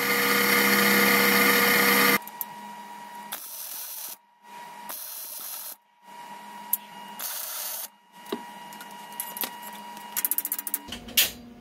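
Wire-feed (MIG) welder crackling steadily in short runs on a steel frame tab, each run broken off by a brief silence. The first two seconds are a louder steady rushing noise. Near the end comes a quick run of sharp metal taps from a hammer on steel.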